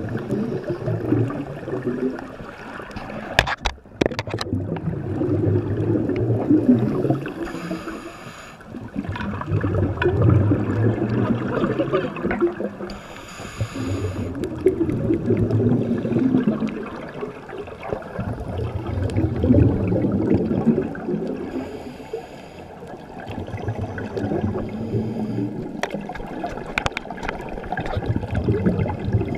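Scuba diver breathing through a regulator underwater. A gurgling rush of exhaled bubbles comes about every four to five seconds, with a short hiss of inhalation through the regulator between some of them. A few sharp clicks or knocks come about three and a half seconds in.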